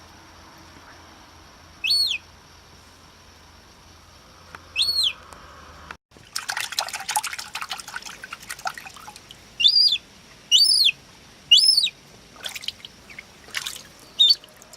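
Gull chick peeping: short, high calls that rise and fall in pitch, two a few seconds apart, then water splashing for about three seconds, then three more peeps about a second apart.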